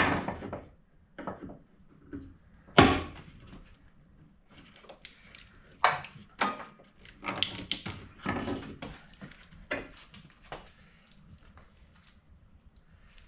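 Irregular knocks, clacks and rattles of tools and parts being handled, the loudest about three seconds in, with a busier run of clatter in the middle that dies away near the end.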